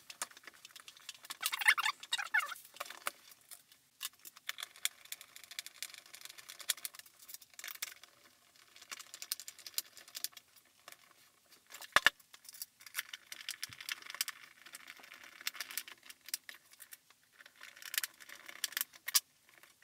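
Screwdriver driving screws into the plastic housing of a Belvar KEM-36 electric meat grinder as it is reassembled, with the case handled and turned on the bench: scattered clicks, short scrapes and light knocks of plastic, and a sharper knock about twelve seconds in.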